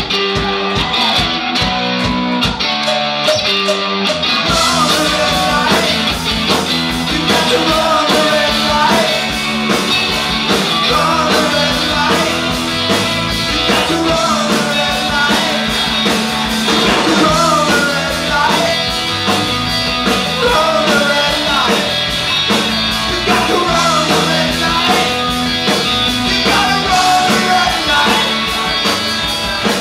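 Live rock band playing: electric guitar, electric bass and drum kit, with a male lead singer. The full band comes in about four seconds in, after a sparser opening.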